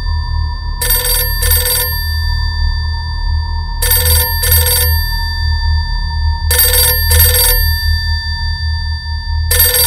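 Telephone bell ringing in the British double-ring pattern, a pair of rings about every three seconds, four pairs in all, the last near the end. A low steady drone runs underneath.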